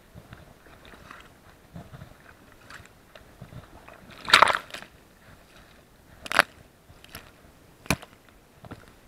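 Handling noise on a dog-mounted SJ4000 action camera: faint crackly rustling and scraping with a few sharp knocks against the camera housing, the loudest a short cluster about four seconds in and single knocks near six and a half and eight seconds.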